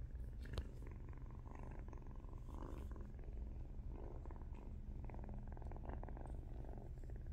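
A young kitten purring steadily close to the microphone, with a brief click about half a second in.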